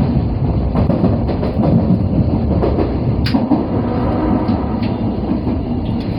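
Osaka Metro 22 series subway train running, a steady rumble of wheels on rail with sharp clicks from the track, the strongest about three seconds in.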